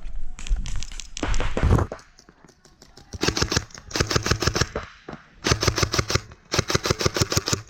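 Airsoft guns firing in rapid full-auto bursts, three strings of evenly spaced shots in the second half, after a couple of seconds of clattering and knocks.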